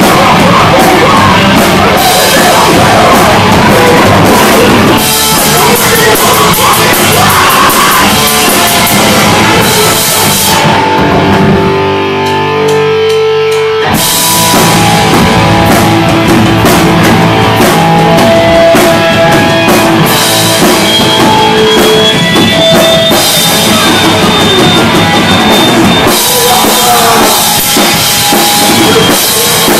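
Live rock band playing loud, with drums, cymbals and guitars, recorded close enough to be very loud. About ten seconds in the drums drop out for a few seconds, leaving the guitars ringing on their own. Then the full band comes back in.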